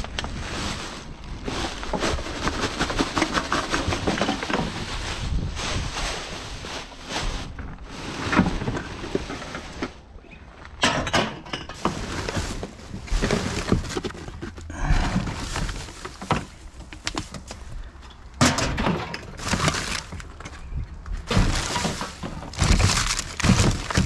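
Rummaging through rubbish in a plastic wheelie bin: plastic bags and wrappers crackling and rustling, with irregular knocks and thuds against the bin.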